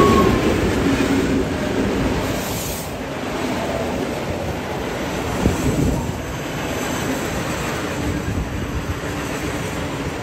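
A train running past on the track: a steady, dense rumble of engine and wheels on rail.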